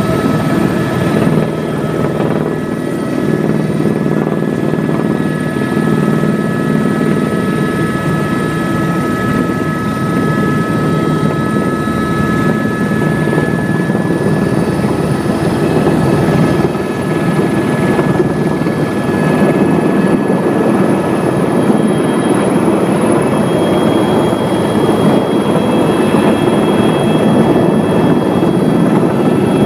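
Helicopter turbine whine and rotor noise, steady and loud, heard from inside the cabin as the helicopter descends to land.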